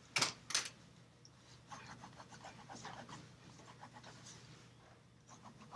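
Graphite pencil scratching across drawing paper in a run of short, faint strokes, with two sharp taps just before the strokes begin.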